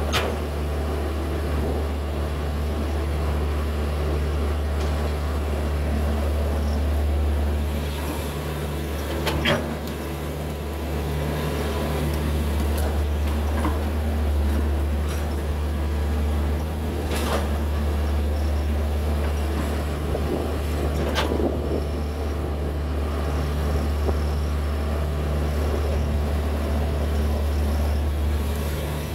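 Hitachi 110 hydraulic excavator's diesel engine running steadily under working load while digging. A few sharp knocks stand out over it, about three times.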